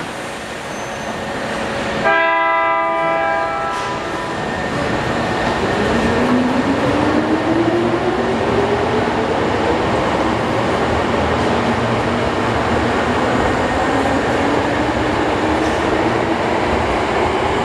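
A subway train's horn sounds one steady blast for about two seconds. Then the train pulls out of the station, its motor whine rising in pitch as it speeds up over steady rumbling rail noise.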